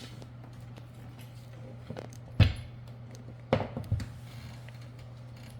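Metal parts and hardware being handled during mower handle assembly: a sharp knock about two and a half seconds in, then a quick cluster of knocks and clinks about a second later, over a steady low hum.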